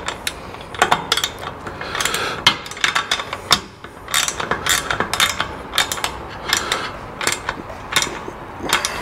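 Hand socket ratchet clicking in quick, irregular strokes as a 13 mm bolt on a roof-rack load bar clamp is tightened, with a short pause near the middle.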